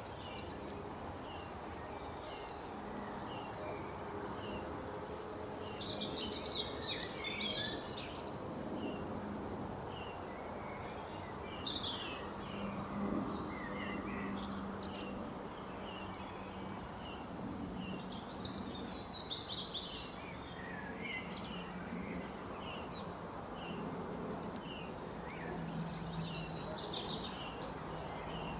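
Wild birds singing and calling in a forest: a short chirp repeated over and over, and three bursts of rapid, high twittering song, the loudest about a quarter of the way in. A steady low drone and background hiss run underneath.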